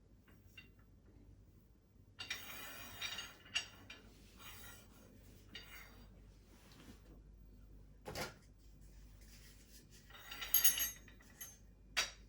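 Metal hooks rattling and clinking on a steel IKEA Fintorp rail as it is handled and offered up, with a few sharp metallic knocks. There are rattling stretches about two seconds in and again near the end, and single knocks in between.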